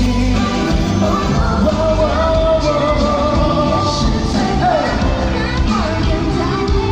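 Live pop-rock concert music: a singer's voice carrying the melody over a full band with heavy bass.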